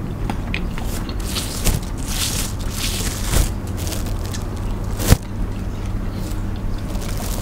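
Eating seafood by hand: crab and shrimp shells crackling and being picked apart, with crunchy chewing. There are three sharp snaps of shell about two, three and a half and five seconds in, the last the loudest, over a steady low hum.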